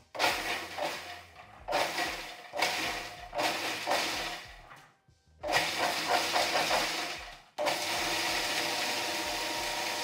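Food processor chopping walnuts and figs: a series of short pulses of the motor, then a steady continuous run from about three quarters of the way in, grinding the mix down to a breadcrumb texture.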